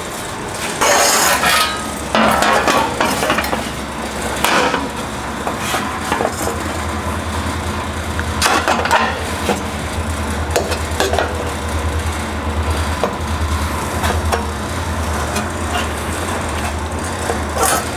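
Hand-shaped sheet-steel fender panel being handled and set onto a wire-form buck: irregular metallic clanks, taps and scrapes, with a low steady hum underneath.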